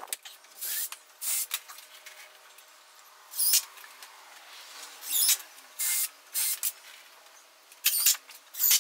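DeWalt cordless drill boring pilot holes into pressure-treated lumber in about eight short bursts, each under half a second, a couple with a wavering high whine from the bit in the wood.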